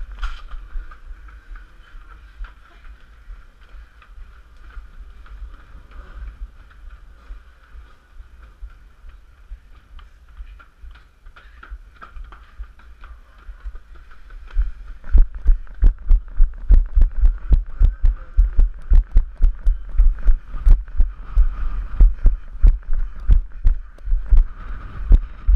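Footfalls of a runner wearing a head-mounted GoPro, heard through the camera as heavy low thumps about three a second. They start about halfway through, after a quieter stretch while the wearer stands still.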